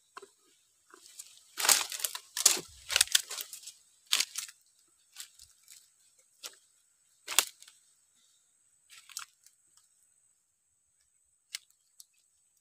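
Dry leaves and twigs rustling and crunching in short irregular bursts, like footsteps through leaf litter. The bursts are busiest in the first few seconds, with one sharp crackle about seven seconds in, then only a few scattered clicks.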